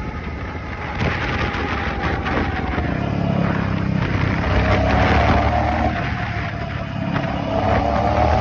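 2001 Suzuki SV650's 90-degree V-twin engine running, swelling a few seconds in and again near the end, with a thin high whine over it that slides slowly down and back up in pitch, and a crackly rattle. The whine is the weird electronic-sounding noise the owner is showing.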